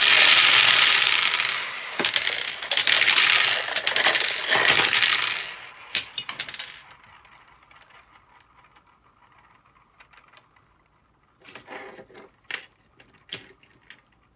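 A bottleful of small green balls spilling out of a lifted plastic bottle and clattering onto a hard tabletop: a dense clatter for about five seconds that thins into scattered rolling and bouncing. A few light clicks come near the end.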